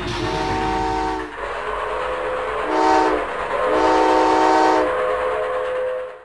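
Train whistle sounding a chord of several notes at once in three blasts: a long one, a short one, then another long one, over steady running noise. The sound cuts off abruptly at the end.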